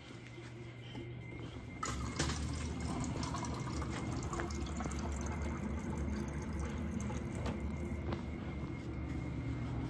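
Beverage dispenser pouring a drink into a cup. It starts suddenly about two seconds in as a steady rush of liquid over a low hum.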